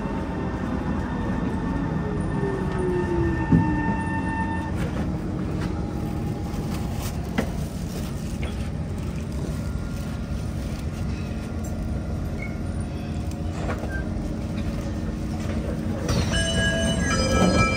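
Kawasaki C151 metro train braking into a station: the traction motor whine falls in pitch over the first few seconds over a steady rumble, with a single clunk a few seconds in, as the train slows to a stop. Near the end a door chime of stepped tones sounds.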